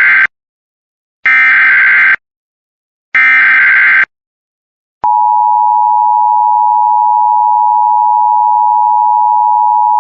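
Emergency Alert System SAME header: bursts of buzzing digital data tones, the end of one and then two more about a second long with a second's gap between them. About five seconds in, the steady two-tone EAS attention signal starts and holds, announcing an emergency alert.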